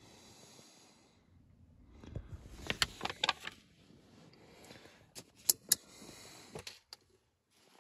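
Quiet handling of a paper tool flyer: soft rustling of pages, with a cluster of sharp light clicks about three seconds in and a few more a couple of seconds later.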